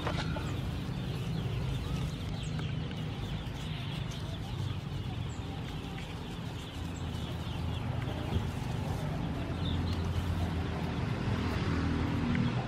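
Chickens clucking over a steady low hum.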